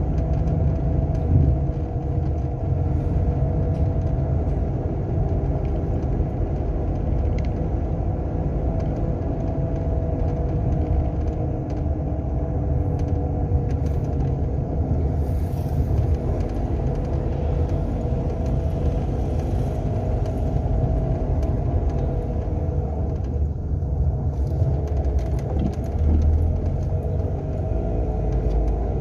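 A Renault Sandero driving, with a steady engine and road rumble and a faint whine that wavers in pitch. The car has a failing alternator bearing.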